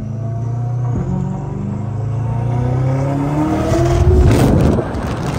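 Twin-turbocharged V8 of a mid-engine C8 Corvette heard from inside the cabin under hard acceleration, its pitch rising steadily for about three seconds, then a loud, rough stretch about four seconds in.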